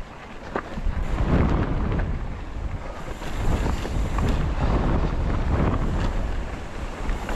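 Wind buffeting the microphone of a mountain bike rolling over a rocky, loose desert trail, with tyres on gravel and scattered clicks and knocks from the bike over the rocks. The rush grows louder about a second in.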